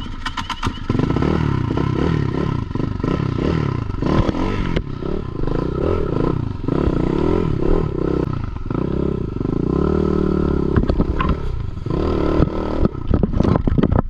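Avantis 250 enduro motorcycle engine revved hard in repeated rising and falling bursts as the bike claws up a steep, loose, leaf-covered slope, with clattering knocks about the start and again near the end as the bike rears up.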